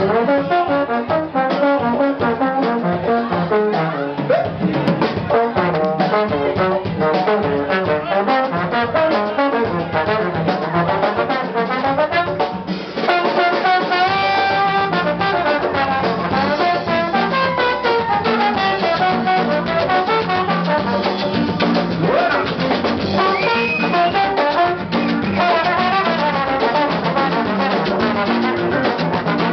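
Live band music with a trombone leading over the rhythm section, the horn line sliding and gliding between notes.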